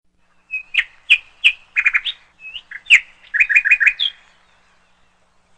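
A bird chirping: a run of short, high chirps and quick little trills of three or four notes, stopping about four seconds in.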